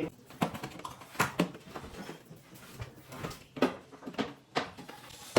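A run of irregular sharp knocks and clacks, about eight in all and several of them loud, as cabinet parts are handled and fitted.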